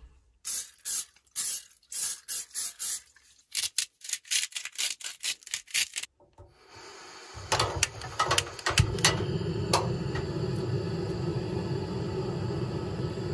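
Coleman propane camp stove burner running with a steady roar from about seven seconds in, with a few clacks as tongs put raw chicken into the frying pan. Before that comes a run of short, irregular scraping knocks.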